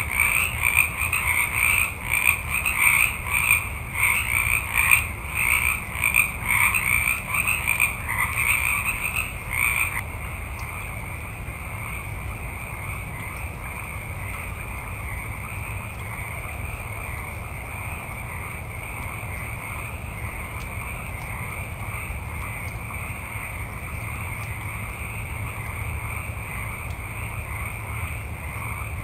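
Chorus of many frogs calling together. For about the first ten seconds the chorus is loud and pulsing, then it switches abruptly to a quieter, steadier chorus.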